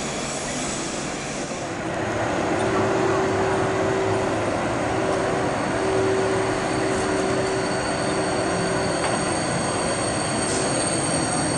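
SNCF TGV Duplex high-speed electric train running slowly out along a covered station platform: a steady rumble with a steady mid-pitched hum from about two seconds in, and thin high wheel squeal coming in near the end.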